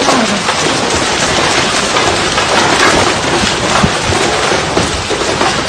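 Heavy hail pelting down: a dense, loud, continuous clatter of hailstones striking hard surfaces.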